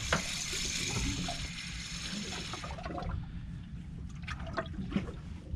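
Water trickling and splashing for about three seconds, then falling away to a few faint clicks and knocks over a low steady rumble.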